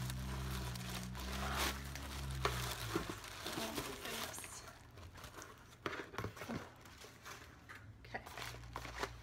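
Tissue paper and plastic packaging crinkling and rustling as a box is unwrapped by hand, in many short irregular crackles, busiest in the first few seconds. A low steady hum sits under the first three seconds.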